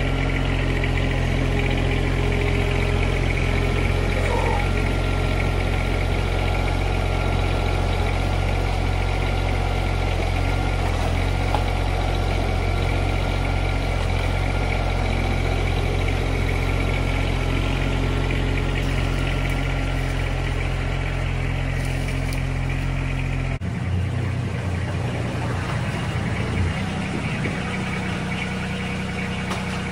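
John Deere 2305 compact tractor's three-cylinder diesel engine running steadily. Its note changes abruptly about three-quarters of the way through, becoming quieter and rougher.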